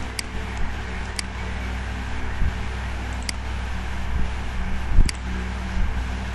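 Four sharp computer-mouse clicks spread across a steady low hum, with a low thud about five seconds in.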